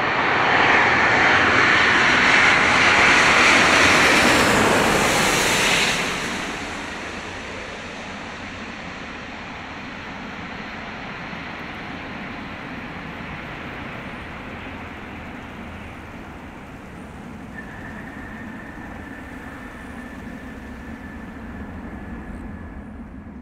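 Airbus A350-900 jet airliner with Rolls-Royce Trent XWB engines, passing low overhead on approach with a loud engine and air noise that peaks about four to five seconds in. About six seconds in the level drops sharply, and the jet's engines then run steadily and more quietly through the landing and rollout. A steady high whine joins in about three quarters of the way through.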